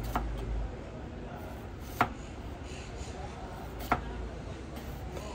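Kitchen knife slicing through an onion and striking a wooden cutting board: three sharp cuts, about two seconds apart, the last two the loudest.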